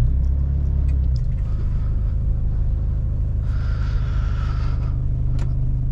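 Steady low rumble of engine and road noise inside a moving car's cabin.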